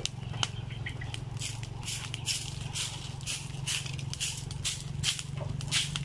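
Dry leaves being swept and rustled with a stick broom in short, irregular swishes, about two a second, over a low steady hum.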